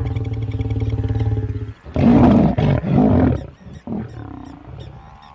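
A pair of African lions mating: a long, steady growl for nearly two seconds, then two loud snarls from the pair as the lioness turns on the male at the end of copulation, and a shorter snarl about four seconds in.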